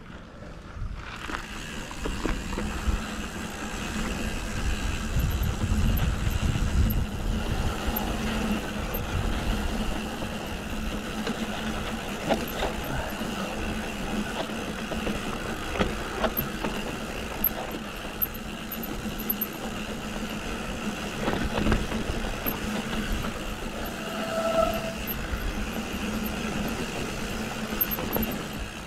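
Mountain bike rolling down a dry dirt trail: steady tyre noise on the dirt and a low rumble, with knocks and rattles from the bike over bumps. A brief high squeal comes near the end.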